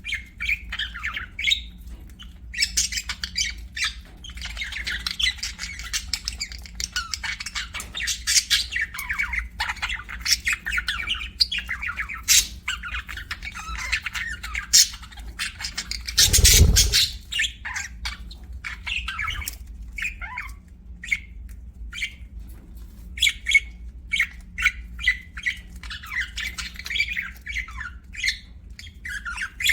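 Pet budgerigars chirping and chattering: a dense, continuous stream of short, high calls. A little past halfway there is one brief, loud thump-like noise lasting under a second.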